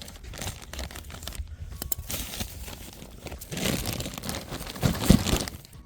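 Digging through compacted soil in a plastic mulch bag: rustling, crunching and crinkling that builds and is loudest about four to five seconds in.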